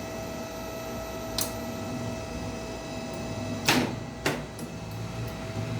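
A lift running with a steady hum and a faint, steady mid-pitched tone. A light click comes about a second and a half in, and two sharper mechanical knocks follow near the four-second mark.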